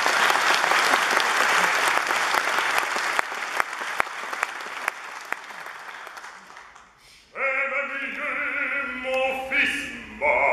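Audience applause that thins out and dies away over about six seconds. About seven seconds in, a man's operatic singing voice begins with a wavering, vibrato-laden line.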